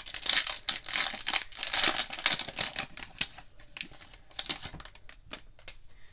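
Foil trading-card pack wrapper being torn open and crinkled, dense crackling for about three seconds, loudest near the two-second mark. It then thins to scattered crackles as the stack of cards is slid out of the wrapper.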